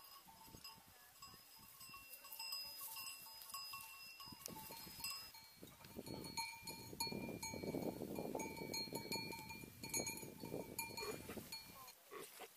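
Bells on a grazing flock of sheep ringing steadily, with sheep bleating; the flock grows louder from about halfway through.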